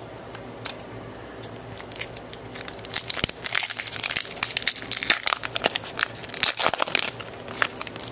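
A hockey card pack's foil wrapper being torn open and crinkled by hand: a dense crackle starts about three seconds in and eases off near the end.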